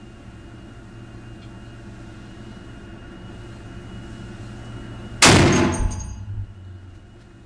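A single shot from a Barrett M107 .50 BMG semi-automatic rifle about five seconds in: one sharp, loud report that rings and dies away over about a second.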